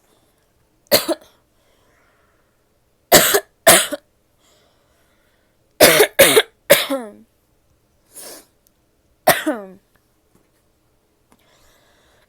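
A woman coughing in short fits: one cough, then two, then three in quick succession, then a faint one and a final cough. Some coughs trail off in a falling voiced tone.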